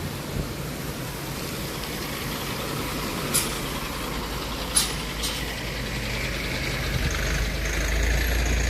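Street traffic noise, with a vehicle passing close and its low rumble swelling near the end. Two or three sharp clicks sound in the middle.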